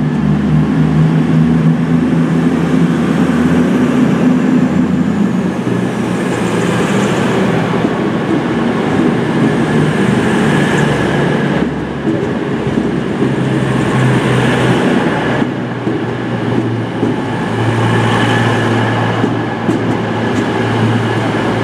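Class 221 Super Voyager diesel-electric multiple unit departing and passing close by, its underfloor diesel engines running under power with the rumble of the passing carriages. The engine note shifts and swells a few times as the cars go by.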